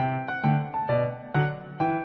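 Background music: a piano or electric-piano melody, notes struck about twice a second, each fading before the next.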